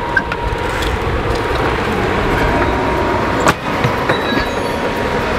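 Steady outdoor street rumble with a faint steady hum, and a door shutting with a single sharp knock a little past halfway.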